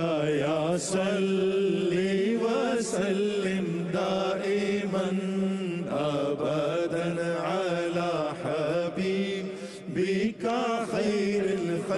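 Background devotional vocal music, an Urdu naat: a voice sings a winding melody over a steady drone.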